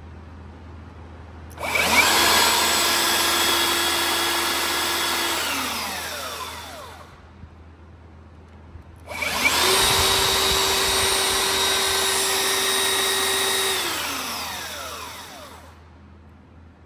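Makita BS001G 40Vmax cordless brushless belt sander switched on twice. Each time it spins up quickly, runs at a steady pitch for about four seconds, then winds down with a falling pitch once the trigger is let go.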